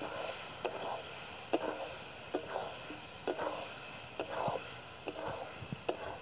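Metal spatula stirring potato pieces through thick spice paste in a metal kadai, knocking and scraping against the pan about once a second.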